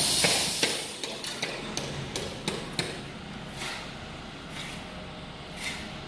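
Hammer knocking on wood as concrete forms and stakes are set: a quick irregular run of sharp knocks that thin out and grow fainter after about three seconds. A short loud hiss opens it.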